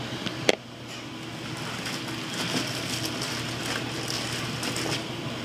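Clear plastic wrapping crinkling and rustling as a leather satchel is pulled out of it and out of a cardboard shipping box, with a sharp click about half a second in.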